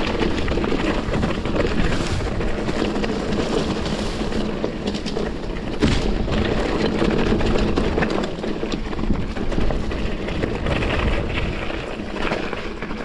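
Mountain bike rolling down a rough dirt and stone trail: steady tyre noise with many small rattles and clicks from the bike, and a sharp knock about six seconds in. Wind is on the microphone.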